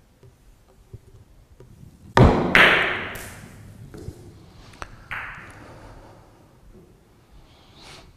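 Billiard shot on an Italian carom table: the cue strikes the cue ball sharply about two seconds in, followed at once by loud clicks of ball hitting ball. A few fainter knocks and clicks follow over the next few seconds as the balls run on and hit the cushions and each other.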